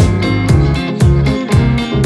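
Background music: guitar over a steady beat of about two drum hits a second.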